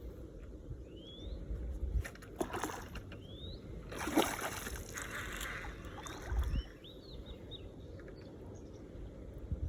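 Birds calling outdoors in short rising chirps over a steady low rumble, with two bursts of rushing noise about two and a half and four seconds in; the second is louder and lasts over a second.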